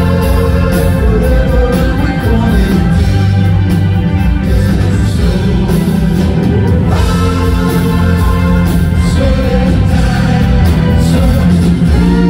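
Rock band playing live, with lead vocals sung over electric guitar, keyboards, bass and drums.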